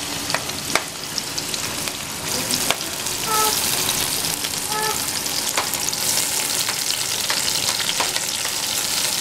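Sliced onions sizzling in hot ghee in a karahi, with a few sharp clicks near the start; the sizzle grows louder a couple of seconds in.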